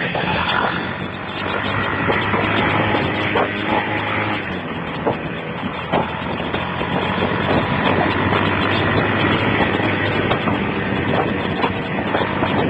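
Steady road noise of a motorcycle ride: the engine runs at speed under a rushing wind noise, with a few sharp knocks. It is recorded through a Nokia 6233 phone's microphone, which sounds thin and muffled at the top.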